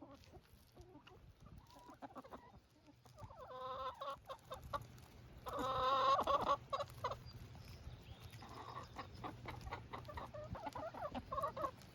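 Chickens clucking, a run of separate pitched calls, loudest about six seconds in.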